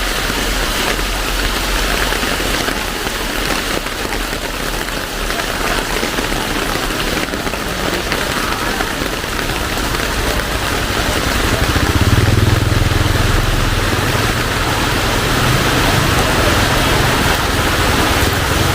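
Heavy rain falling steadily on the ground and surfaces. About two-thirds of the way in, the low rumble of a vehicle engine comes in under the rain and stays.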